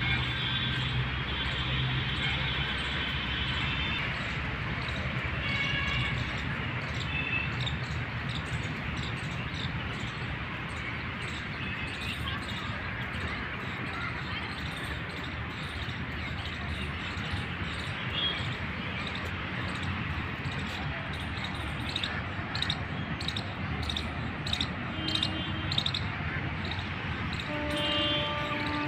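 Outdoor park ambience: a steady rushing background noise with small birds chirping. The chirps come now and then at first and then thickly in the second half.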